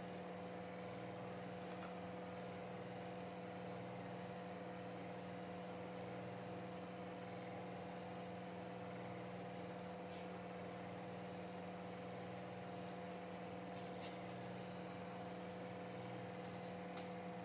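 Steady electrical hum made of a few level tones, with a few faint clicks about ten seconds in and again near the end.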